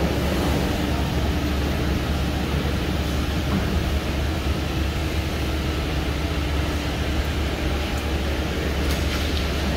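JCMDQ 3100 veneer rip-cutting machine running: a steady, loud mechanical noise with a strong low hum.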